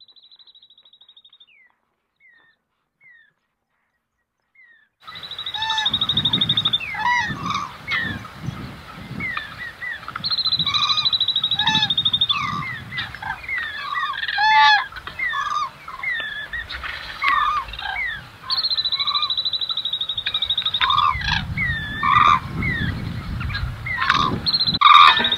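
Birds calling in a busy chorus. It starts faint with one rapid high trill and a few short chirps, then about five seconds in it turns loud: rapid high trills about two seconds long recur several times over many shorter rising and falling calls, with a low rumble underneath.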